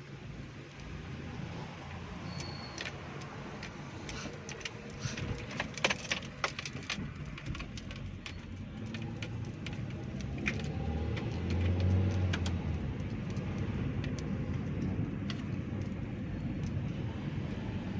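A car driving slowly on a road test to check whether a knock when turning has gone after a drive shaft CV-joint boot replacement and bearing regrease. A steady low running rumble, with a flurry of light clicks and rattles a few seconds in and a low hum swelling briefly about two-thirds of the way through.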